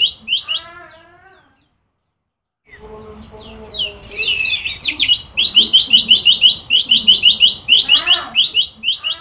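Caged kecial kuning (yellow white-eye) singing its fast 'nembak' song: rapid-fire runs of high, sharp chirps in quick bursts. The song breaks off about a second and a half in and starts again about a second later.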